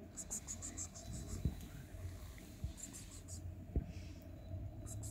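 Three quick runs of soft, high, scratchy ticks, about eight a second: a person's calling sounds to coax a shy cat toward an outstretched hand. A few dull low knocks fall between them.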